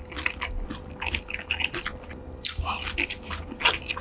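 Close-up eating sounds: a person chewing and biting crunchy food, with many irregular wet clicks and crunches.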